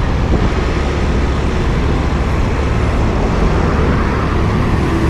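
Steady low rumble and wind noise of a moving vehicle, with no change in pace.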